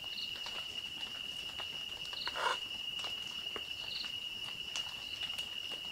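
Night insects trilling on one steady, unbroken high note, with faint scattered clicks over it.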